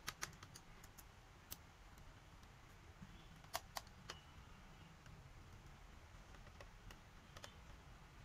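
Scattered sharp plastic clicks as the bottom cover of an Acer Aspire 3 laptop is pressed down along its edges, its clips snapping into place. The two loudest clicks come close together about three and a half seconds in.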